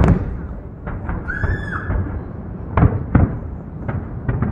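Fireworks going off: a run of sharp bangs, about five or six, the loudest pair about three seconds in, with a short high-pitched tone between them a little past one second in.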